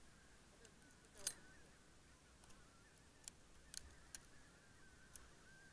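A string of sharp close clicks and knocks, the loudest about a second in, over faint honking from a distant flock of geese.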